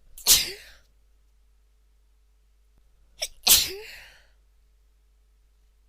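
A woman sneezing twice, about three seconds apart. Each sneeze comes with a short, sharp catch of breath just before it.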